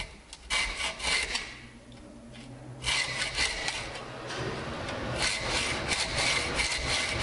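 Hacksaw cutting in quick, short strokes into a folding knife's steel locking bar and handle spine to notch out jimping. One run of strokes comes about half a second in, and a second, steadier run starts about three seconds in and carries on.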